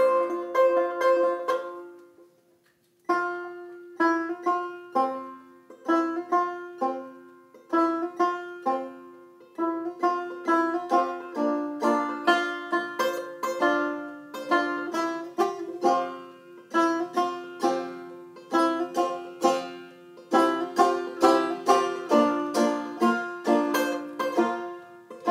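Solo banjo picked as the instrumental introduction to a song: a short phrase, a brief stop about two seconds in, then a steady run of picked notes.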